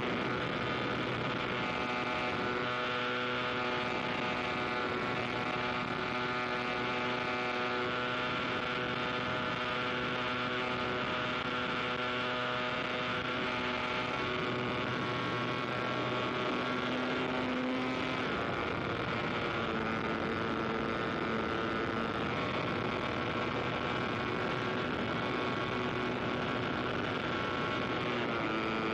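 Aircraft engine running steadily, a droning tone with strong overtones, whose pitch shifts several times as the aircraft flies.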